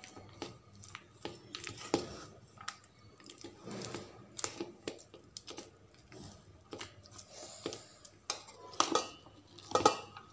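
Hand mixing crumbly cooked rice rava in a steel bowl: irregular soft scrapes and light knocks of fingers and grains against the metal, with a few louder knocks near the end.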